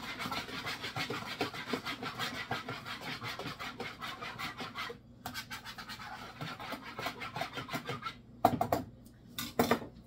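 Danish dough whisk stirring yeast and salt into water in a plastic bowl: rapid scratching strokes of the wire coil against the bowl, pausing briefly about halfway, then two louder knocks near the end.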